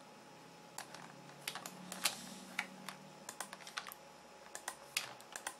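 Computer keyboard keys being pressed in short, irregular clicks, starting about a second in.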